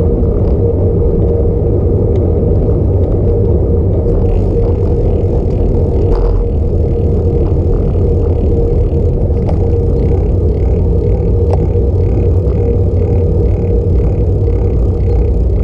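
Wind buffeting the camera's microphone and tyres rumbling on pavement while a bicycle rides along at speed, with a steady hum underneath.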